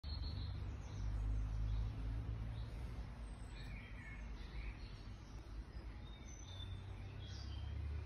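Birds chirping now and then in the background over a steady low rumble.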